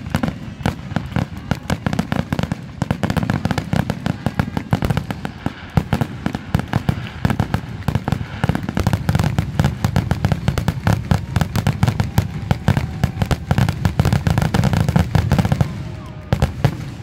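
Aerial fireworks in a finale barrage: many shells bursting over one another in rapid, dense bangs and crackle. The barrage thins out near the end, leaving a few last bangs.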